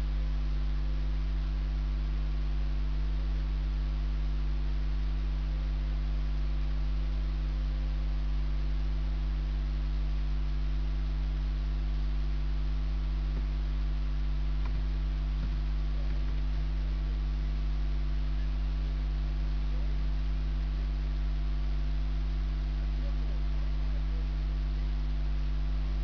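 Steady electrical mains hum: a low drone with a stack of evenly spaced, fainter steady tones above it and a light hiss, unchanging in level.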